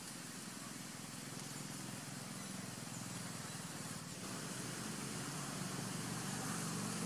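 Steady outdoor background noise: an even hiss with a low hum underneath and no distinct sound standing out.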